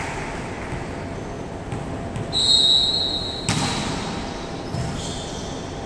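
A referee's whistle sounds once for about a second, the signal to serve. Just after it comes a sharp smack of a hand striking the volleyball, ringing on in the hall's echo.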